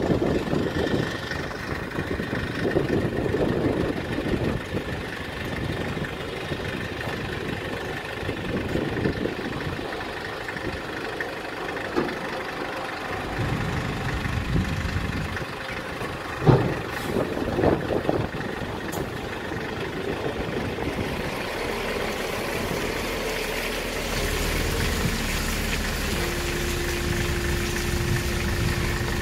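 Kia Bongo III wrecker truck's engine idling while the hydraulic underlift boom is lowered and unfolded from the rear controls, with a few short clanks along the way. Near the end the sound settles into a steadier hum with a held tone.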